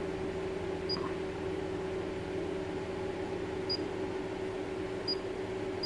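Four short, high electronic beeps from the keypad of an S2800 handheld automotive oscilloscope as its buttons are pressed, over a steady low hum.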